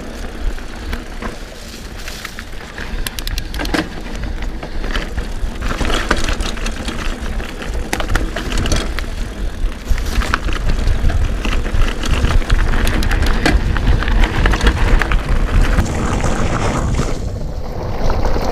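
Trek Roscoe 8 hardtail mountain bike ridden fast over a dirt singletrack: tyres crunching over leaves and roots, with frequent rattles and knocks from the bike as it bumps along. Wind on the camera microphone adds a steady low rumble.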